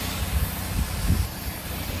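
Gas-engine pressure washer running steadily, with the hiss of its high-pressure water spray over the engine; the hiss eases a little past a second in.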